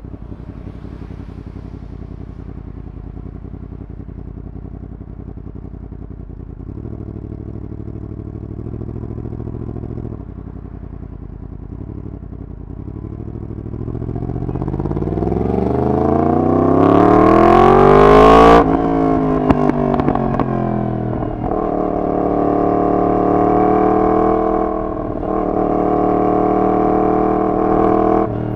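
Yamaha MT-10's crossplane inline-four through a decat full exhaust system. It runs low and steady for about the first half, then accelerates hard with the pitch climbing for about four seconds, cuts off sharply, and carries on running steadily at a higher pitch with small rises and falls.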